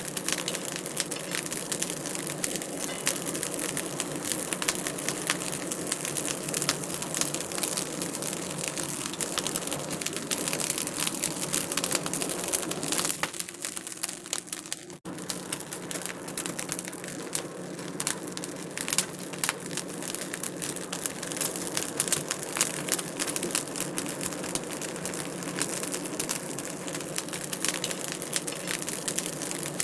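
Fireplace wood fire crackling: dense, irregular pops and snaps over a steady hiss. It goes briefly quieter about halfway through and cuts out for an instant before carrying on.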